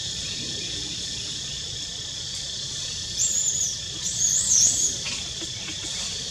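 A steady, high insect drone, with two short, high, warbling whistled calls a little after three and four seconds in.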